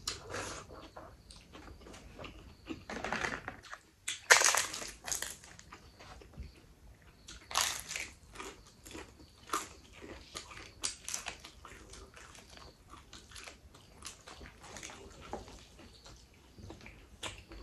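Eating sounds: a crisp papad bitten and crunched several times, the loudest crunches a few seconds in, with chewing and crackling between bites.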